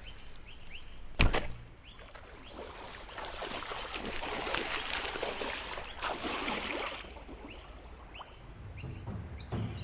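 A sharp knock about a second in, then a few seconds of splashing and sloshing as someone moves quickly through shallow water.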